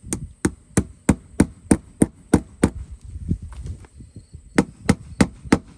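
Claw hammer driving a tack into a wooden raised-bed board: a run of about nine quick strikes, roughly three a second, a pause, then four more strikes near the end.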